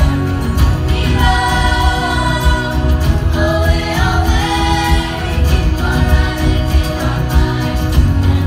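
A children's choir singing over backing music with a steady bass line, the voices holding long, sliding notes in the middle of the passage.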